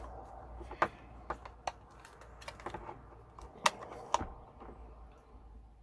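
Irregular sharp clicks and taps of a flathead screwdriver working a tiny terminal screw on a small plastic solar charge controller, clamping a cable in place, with a few louder clicks.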